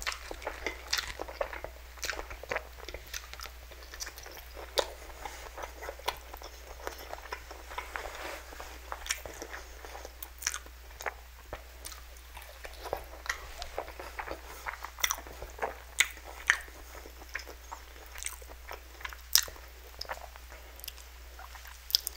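Close-miked eating sounds: a person chewing mouthfuls of spicy instant noodles and biting into a sausage, with many irregular wet clicks and smacks.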